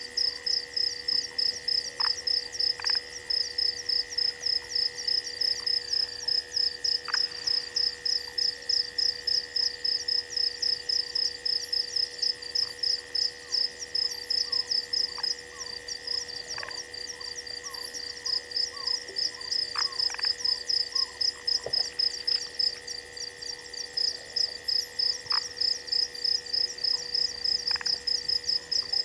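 Night chorus of insects and frogs: a rapid high chirping about four times a second, pausing briefly twice, over a steady high trill and scattered short faint calls.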